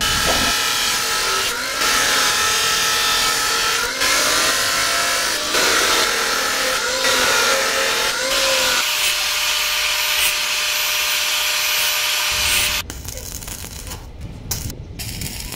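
An electric power tool running with a steady whine and hiss, its pitch shifting a little under load, then switched off suddenly about thirteen seconds in.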